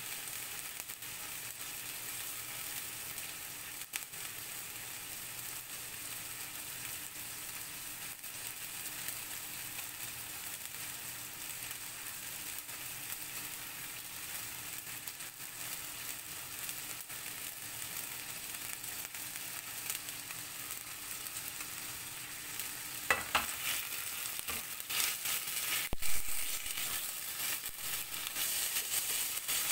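Chicken livers sizzling steadily as they fry in a stainless steel pan. Near the end a spatula goes in, clicking and scraping against the pan as the livers are stirred.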